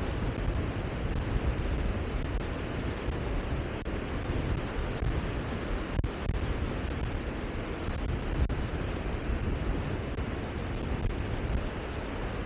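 Steady rushing outdoor noise with a heavy, fluttering low rumble and no distinct events, typical of wind buffeting the microphone by the sea.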